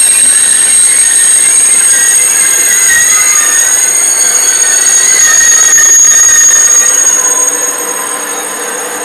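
SNCF TGV Duplex double-deck high-speed train passing, its wheels giving a wavering, high-pitched squeal over the running noise. The sound falls away about three quarters of the way through as the rear power car goes by.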